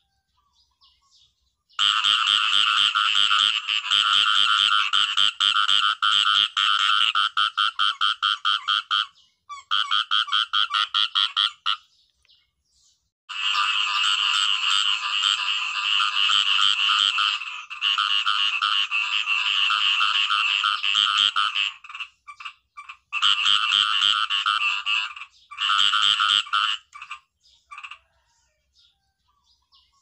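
Khiat i-mo frogs calling in long runs of rapid pulses, several bouts of a few seconds each broken by short pauses.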